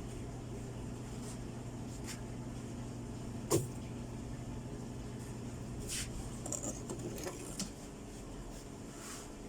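A steady low hum with a sharp knock about three and a half seconds in and lighter clicks and knocks around six and seven and a half seconds; the hum stops about seven seconds in.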